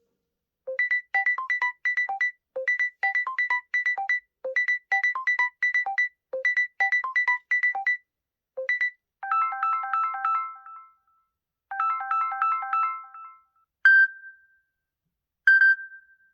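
Samsung Galaxy A54 ringtones. First a short phrase of quick electronic notes repeats about every two seconds. Then a different, chiming phrase plays twice, followed by two single high chimes near the end.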